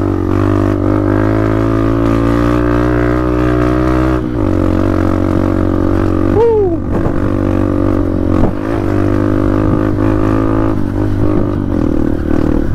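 Honda CRF trail motorcycle's single-cylinder engine running under throttle with a steady drone. About four seconds in the note drops as the throttle eases, and a short falling note comes about six and a half seconds in.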